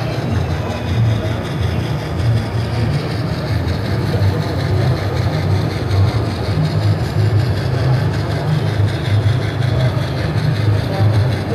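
Model steam locomotive (Philotrain NS 6306) playing steam-loco sound from its Loksound 4.0 digital sound decoder through a small onboard speaker, a steady low rumble with no clear beat.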